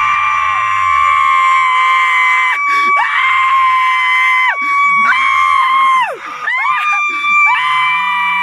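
A group of people screaming together in long held shouts on a steady high pitch, three or four of them, each lasting a second or two with short breaks for breath.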